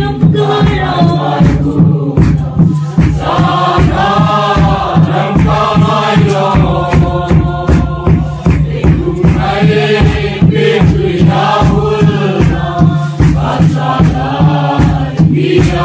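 A crowd of men and women singing a Mizo khawhar hla, a mourning song, together in unison over a steady, regular beat.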